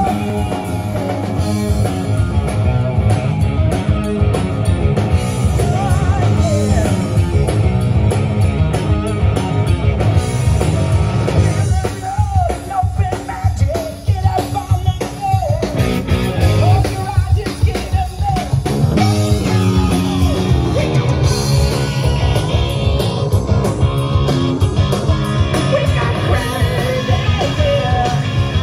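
Live rock band playing through a PA: electric guitars, bass and drums with a singer, with a stretch in the middle where the drums thin out and bending guitar lines stand out.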